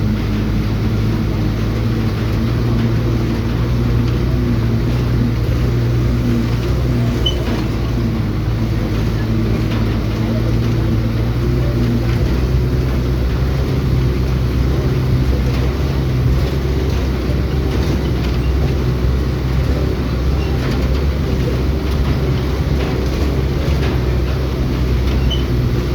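Motor vehicle running steadily on the road: a low engine drone with road noise, the engine note shifting slightly about halfway through.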